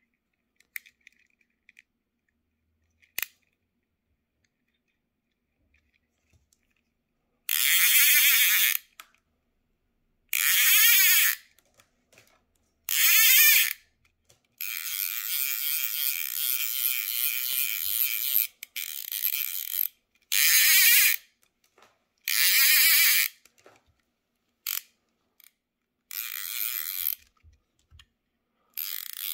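Hardy Bouglé fly reel's click-pawl check buzzing as the spool is spun by hand. The buzzing comes in repeated bursts of one to two seconds and one longer, steadier run of about four seconds, after a near-silent opening with a couple of faint clicks.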